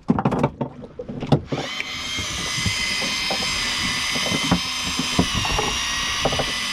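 A few knocks and clicks, then about two seconds in an electric fishing reel's motor starts a steady, high whine as it winds in line.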